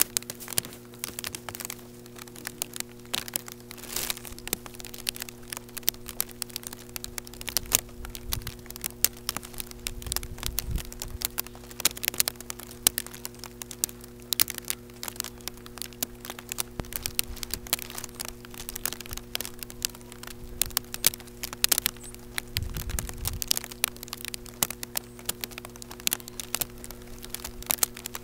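Irregular crackling clicks, typical of raindrops hitting the camera and its microphone, with a few dull low thumps, over a steady low hum.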